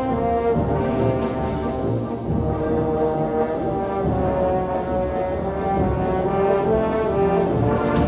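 Orchestral music with brass to the fore, holding sustained chords over repeated percussion strokes.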